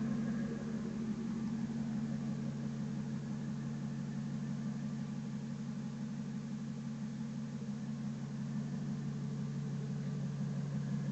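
1999 Ford F250 Super Duty's 5.4 Triton V8 idling steadily.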